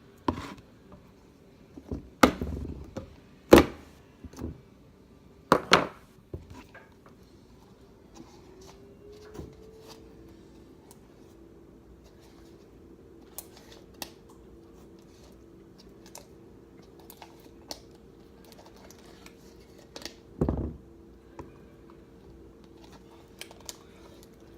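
Objects being handled: a few sharp clicks and knocks in the first six seconds and another about twenty seconds in. A faint steady hum rises in pitch about eight seconds in and then holds.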